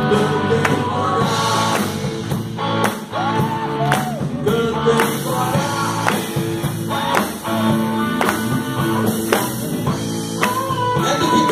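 Live rock band playing a song: drum kit beating steadily under electric guitars, with a lead singer's voice over the top.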